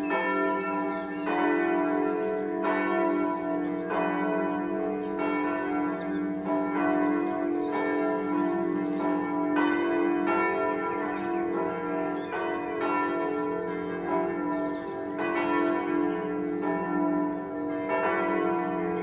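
Church bells swinging and ringing together in a full peal, the daily ecumenical evening ringing. Strokes come a little more than a second apart and overlap, with the bells' low hum sounding on between them.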